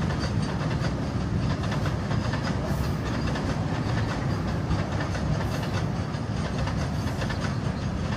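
Freight train of open wagons loaded with long rails rolling past, a steady noise of wagon wheels on the track.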